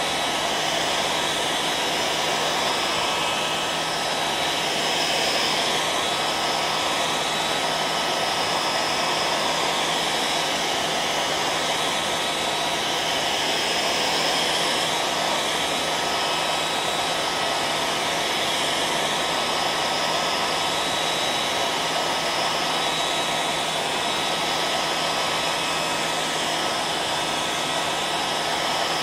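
Hairdryer running steadily: an even rush of blown air with a constant motor hum and whine.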